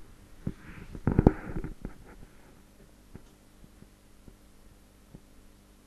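A short wordless murmur from a man's voice about a second in, then a few faint, scattered clicks over a low steady hum.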